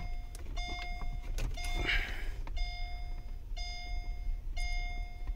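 Mercedes SL500 interior warning chime beeping over and over, about once a second. Each beep is a short steady electronic tone that opens with a click.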